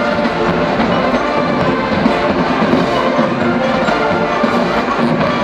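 College marching band playing: brass and drums together, loud and steady.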